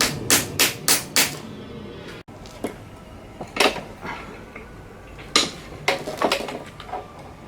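Hand tools and metal engine parts knocking and clinking: a quick run of sharp taps, about three a second, then scattered single knocks.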